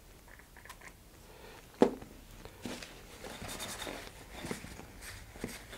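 Quiet workbench handling: a sharp click about two seconds in, then soft rustling of a paper towel wiping the freshly glued part.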